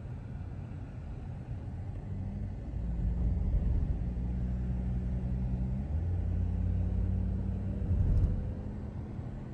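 Engine and road noise of a moving car: a steady low rumble with an engine hum that changes note about six seconds in.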